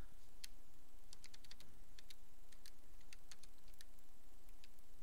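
Small plastic calculator keys being pressed in an irregular run of light clicks, a few a second, as a sum is keyed in.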